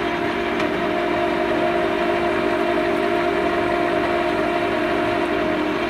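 LeBlond engine lathe running with its spindle turning and carriage engaged for a thread-cutting pass, giving a steady gear-train hum with several even tones.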